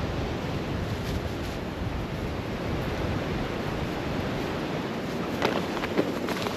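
Strong blizzard wind blowing across the microphone: a steady rushing noise, with a few faint short sounds about five and a half seconds in.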